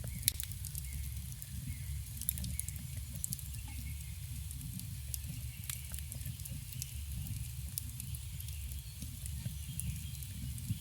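Campfire burning: a steady low rumble with frequent sharp crackles and pops of burning wood, one loud pop just after the start.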